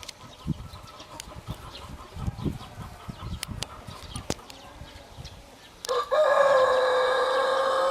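Rooster crowing: one long, loud crow about six seconds in, held at a steady pitch, after a few seconds of faint clicks and knocks.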